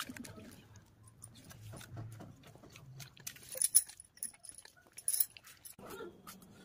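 Rubbing, scraping and scattered clicks of a phone being handled and repositioned, with two sharper knocks in the second half. Near the end the noise gives way to a steady low hum.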